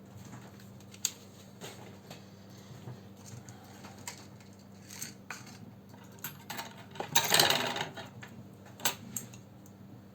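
Small screwdriver and tiny screws clicking and scratching against a netbook's plastic case during reassembly: scattered sharp clicks, with a louder, longer scrape of handling about seven seconds in.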